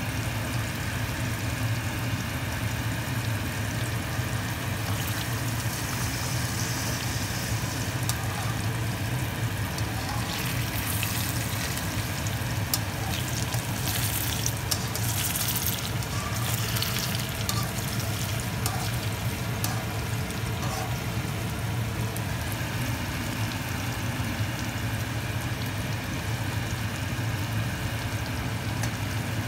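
Egg and shrimp mixture frying in hot oil in a pan, a steady sizzle over a low hum, with livelier crackling for several seconds from about ten seconds in.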